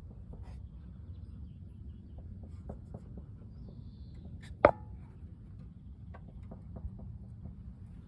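BMW F30 rear suspension knocking under a steady low rumble: light scattered clicks and one sharp, loud knock about halfway through.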